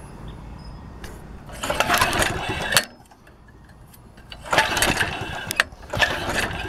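A 7-horsepower lawn mower engine, converted to run on propane, being pull-started: three pulls of the recoil starter, each about a second of rope and engine cranking that stops sharply, without the engine catching.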